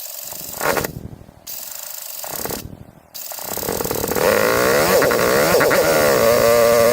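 Husqvarna TE250 enduro motorcycle's single-cylinder engine being started: two short bursts of cranking, then it catches about three seconds in, revs up and down a few times and settles into a steady idle.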